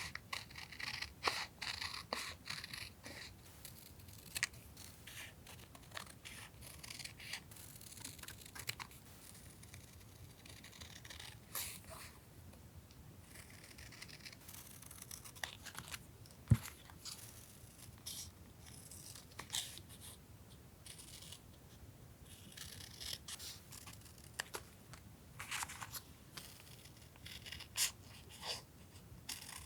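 Scissors cutting paper, with paper being torn and handled: scattered short snips and rustles, and one sharp knock about halfway through.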